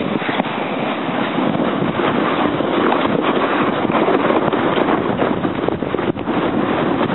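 Plastic sled sliding down a snowy hill: a steady scraping hiss of the sled over the snow, mixed with wind noise on the microphone.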